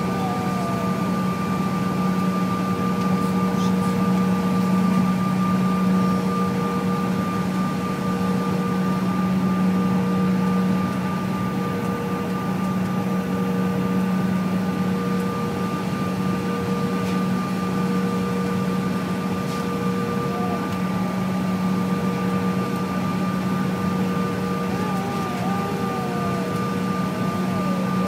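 Cabin noise of a CRJ1000 taxiing: its rear-mounted GE CF34 turbofans at low power give a steady hum with a constant low drone and a higher whine over it.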